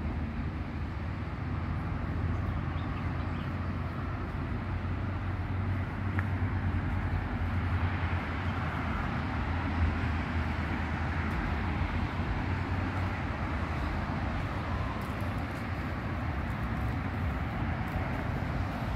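Steady outdoor ambience: a low rumble under an even hiss, with no distinct events.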